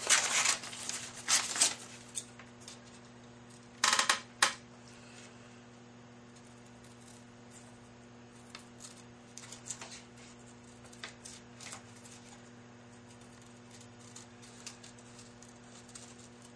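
Scissors cutting printer paper, with the paper rustling. The rustling is loudest in the first two seconds, with a short burst about four seconds in, then only scattered quiet snips. A steady low hum runs underneath.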